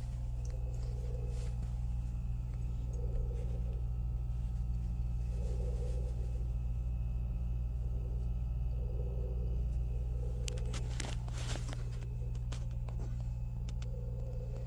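Hotel refrigerator running with a steady low hum, overlaid by a softer pulsing sound that swells and fades every second or two, like sleep-apnea breathing. A few short clicks come about eleven seconds in.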